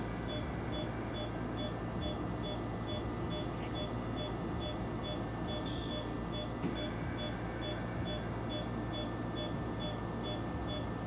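Anaesthesia monitor beeping steadily at about two beeps a second, the pulse tone of the anaesthetised dog, over a steady machine hum; a short hiss about six seconds in.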